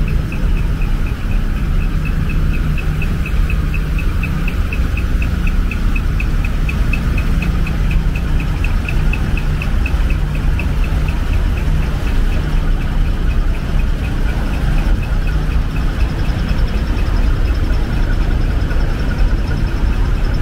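Large diesel truck engine idling with a steady low rumble. Over it, a faint high tick repeats about four times a second and fades out about two-thirds of the way through.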